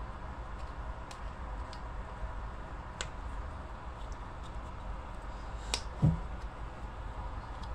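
Small objects handled on a table: a few light clicks, a sharper click about three seconds in, and a louder click followed by a low thump about six seconds in, over a steady low background hum.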